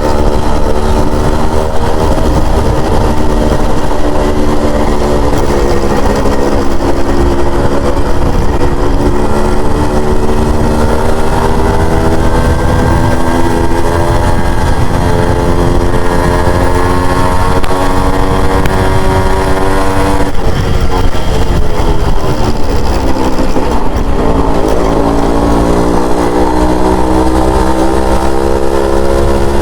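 Yamaha RX100's two-stroke single-cylinder engine running under way, its note rising and falling with throttle and gear changes. It climbs slowly for a long stretch, falls sharply about two-thirds of the way through, then picks up again.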